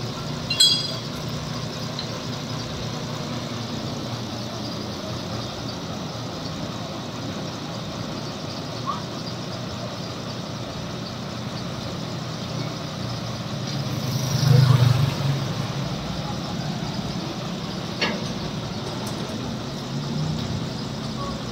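Diesel engine of a truck-mounted borewell drilling rig idling steadily, growing louder for a second or so about two-thirds of the way through. A sharp knock sounds just after the start and another a few seconds before the end.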